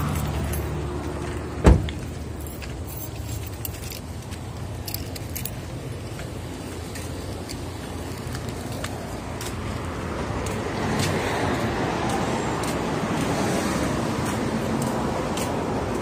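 Car engine running, then a car door shuts with a single loud knock about two seconds in. After that, steady street traffic noise with scattered small clicks.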